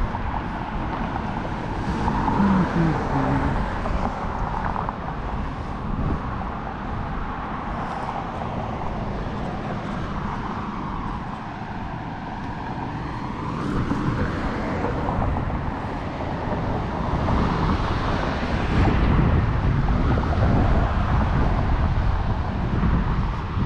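Street traffic: cars and vans passing on the road alongside, a steady rush of tyres and engines that swells as each vehicle goes by and is loudest near the end.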